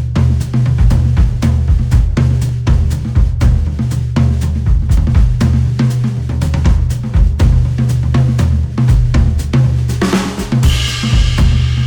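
Recorded instrumental music with a driving drum-kit beat over heavy bass, with a brighter swell of cymbal-like high sound near the end.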